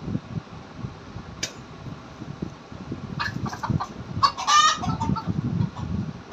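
Domestic chickens clucking: a run of short clucks starting about three seconds in, crowding into a quick, louder burst of calls near the middle, over a low rumble.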